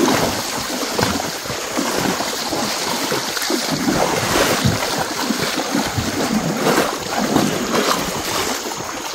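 Water splashing and sloshing without a break as cattle wade through flooded pasture, in many small irregular splashes.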